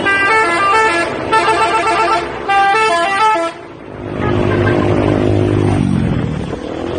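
Bus 'telolet' musical horn playing a quick tune of stepped notes for about three and a half seconds, then a lower held tone that slides down in pitch near the end.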